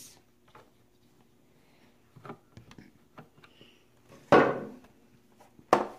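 Light plastic clicks from a Crayola Crayon Carver, a motorized toy, as it is handled and its handle pushed down in a test run without a crayon. About four seconds in comes one louder, short noisy clatter, and near the end a sharp click.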